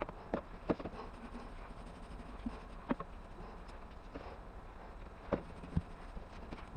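A few scattered light knocks and clicks, about five in all, over a low steady background hum.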